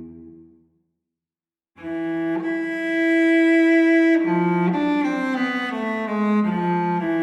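Slow background music of bowed strings: a held chord fades away, a second of silence, then long sustained notes come back, with a slowly falling melody in the second half.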